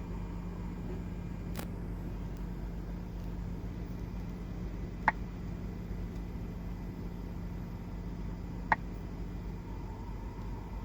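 Sharp clicks behind a Golf 7.5 Climatronic dashboard, repeating about every three and a half seconds over a steady low hum: the defrost air flap noise.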